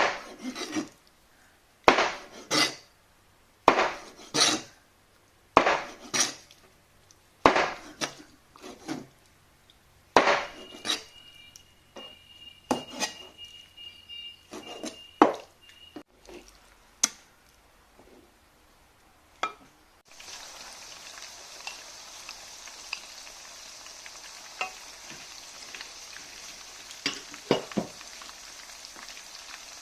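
Kitchen cooking sounds: sharp knocks of utensils on cookware, about one every two seconds and often in quick pairs, then scattered clinks. About two-thirds in, a steady sizzling hiss of food cooking in a pan starts, with an occasional click over it.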